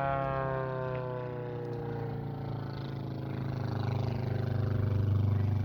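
Propeller aircraft engine droning, its pitch sliding slowly down at first and the drone growing louder toward the end.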